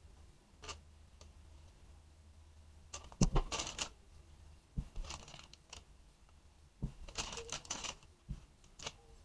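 Plastic spatula scraping buttercream against the rim and sides of a plastic container, with crinkling plastic. The sound comes in short bursts of clicky scrapes, loudest about three seconds in.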